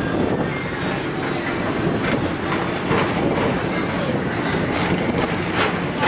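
PeopleMover ride car running along its elevated track: a steady rolling rumble with a few sharp clicks and knocks.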